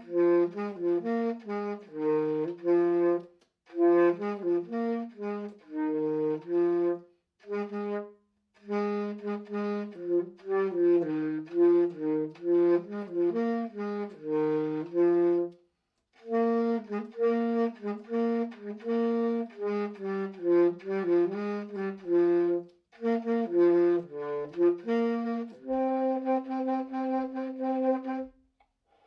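A tenor saxophone plays an unaccompanied melody in short phrases separated by brief silent breaks. It ends on a long held note near the end.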